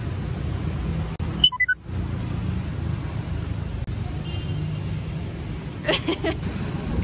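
Steady low background rumble. About one and a half seconds in it briefly cuts out under a quick chime of four notes stepping down in pitch, and a short burst of voice comes near the end.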